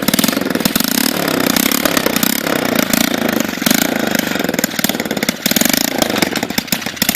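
Small gas engine of a homemade mini bike running with a rapid firing rattle, its pitch rising and falling as the throttle is worked; the muffler is only loosely hung on.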